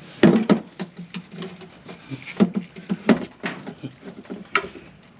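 Flat end cutters biting and slipping on a stainless steel PEX clamp ring on a bilge pump hose, giving irregular sharp metal clicks and knocks. The stainless ring is tough to cut.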